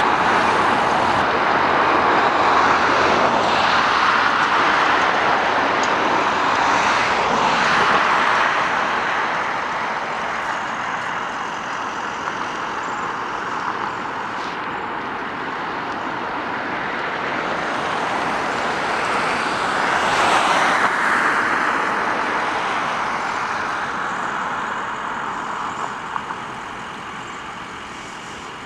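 Passing road traffic: cars driving by with tyre and engine noise that swells and fades, loudest over the first several seconds and again about two-thirds of the way through.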